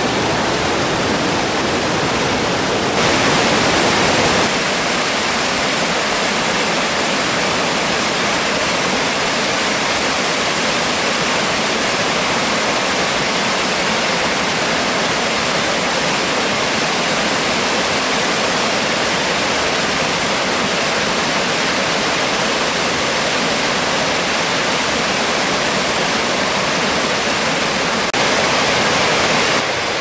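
Large waterfall in high flow after heavy rain: a steady, dense rush of white water pouring over granite ledges. It gets briefly louder about three seconds in and again near the end.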